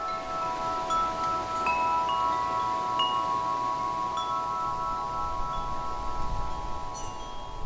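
Tubular wind chime ringing: several overlapping tones that hang on and slowly fade, with a fresh strike every second or two as the tubes swing against each other.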